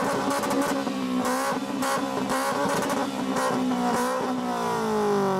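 Straight-piped exhaust of a lowered Toyota Altezza, its engine revved in short repeated throttle blips with sharp cracks between them. The revs drop off near the end.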